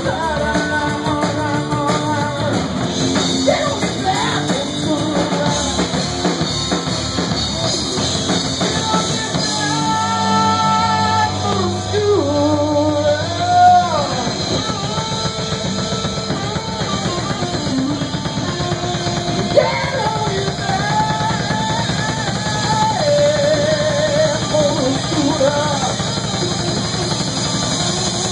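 Live rock band playing, with a drum kit, electric guitar and a singing voice; a lead line bends and wavers in pitch over the steady beat.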